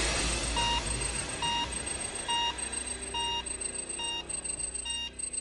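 Electronic background music winding down: a short, bell-like beep repeating a little more than once a second over a faint low drone, gradually fading.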